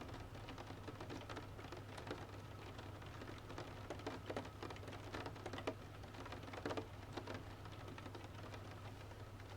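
Rain pattering on a window together with the irregular crackle and pops of a wood fire in a stove, over a steady low hum.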